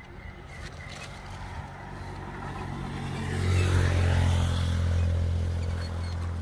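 A motor vehicle's engine drawing near: a low steady hum that grows louder over the first three or four seconds and then holds.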